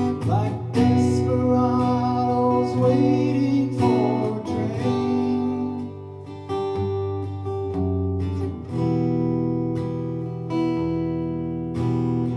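Acoustic guitar strumming chords, with a voice singing a line over it for the first few seconds; the guitar then carries on alone.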